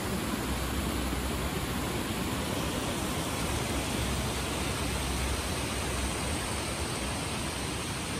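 Steady rushing of a rocky stream tumbling over small cascades, with a low rumble underneath for the first few seconds.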